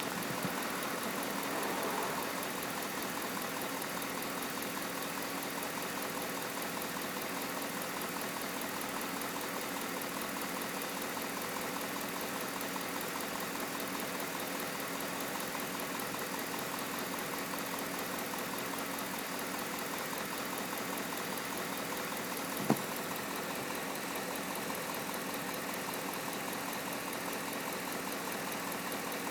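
Pontiac G8 GT's 6.0-litre L76 V8 idling steadily with a fast, even ticking that the owner takes for lifter tick. There is one sharp click about three-quarters of the way through.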